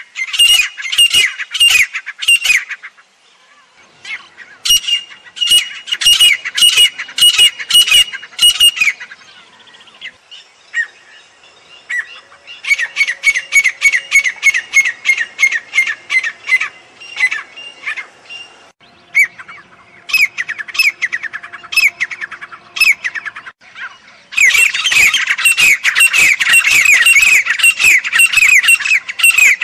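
Grey francolin calling loudly: rapid, repeated series of short falling notes, given in about five bouts with brief pauses between them.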